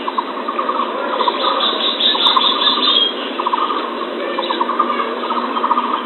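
Birds calling in repeated short, fast trills over a steady hiss, with a higher trill between about one and three seconds in.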